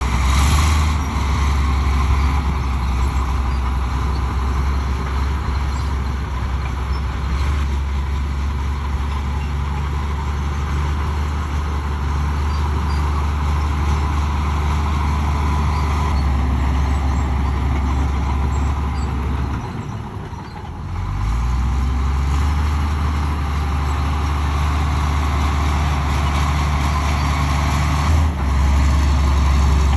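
Komatsu D65 bulldozer's diesel engine running steadily under load with a deep drone. It eases off briefly about two-thirds of the way through, then picks up again.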